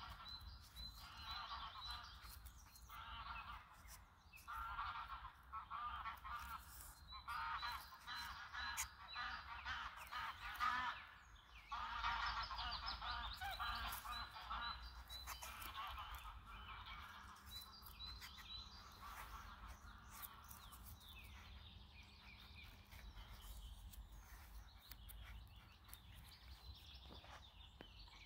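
Geese honking repeatedly, busiest in the first half and thinning out later, over a small bird's steady high chirping.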